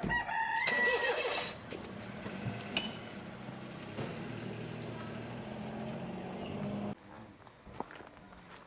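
A rooster crowing briefly at the start. Then a steady low mechanical hum, like an engine running nearby, which cuts off abruptly about seven seconds in.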